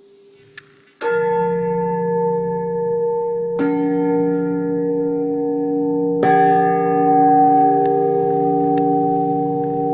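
A bell-like tuned metal instrument struck three times, about two and a half seconds apart. Each strike rings on and adds new pitches, so the tones layer into a sustained chord.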